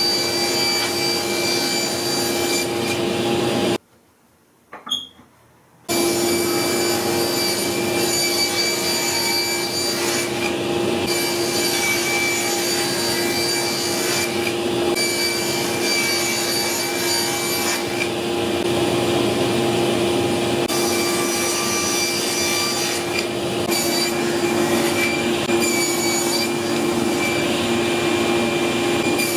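Table saw running with a steady whine while its blade cuts through plywood. The sound cuts off about four seconds in and picks up again about two seconds later.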